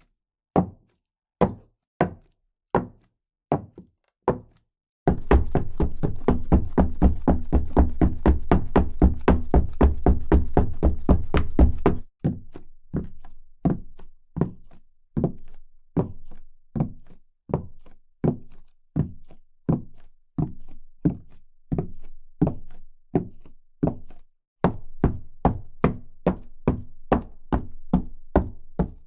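Footsteps in a series of sound-effect recordings: slow, evenly spaced steps at first; then a fast run of steps, about four a second, over a steady low hum from about five seconds in; then walking-pace steps after about twelve seconds; and quicker steps again near the end.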